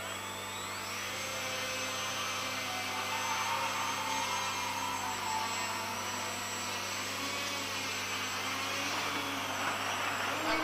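Leadfeather SkyCart four-rotor RC craft's motors and propellers whining, rising in pitch as they spool up around the start, then holding a steady high whine that dips and shifts in pitch as it flies up along the wall.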